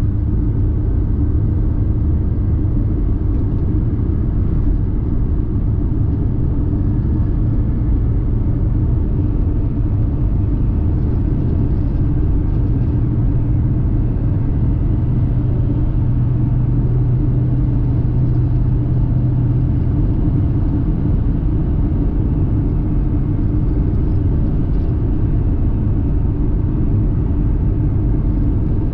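A car driving at a steady speed: a low, even engine and road rumble with a steady hum, which grows a little stronger for a few seconds around the middle.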